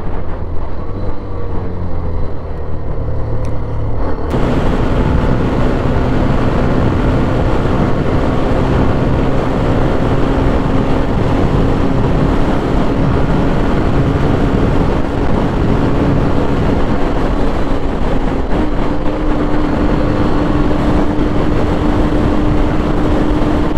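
Hero Xtreme 125R motorcycle's single-cylinder engine running under way, mixed with wind and road rush. The sound changes abruptly about four seconds in. After that the engine note holds steady and climbs slowly, stepping up once about three quarters of the way through.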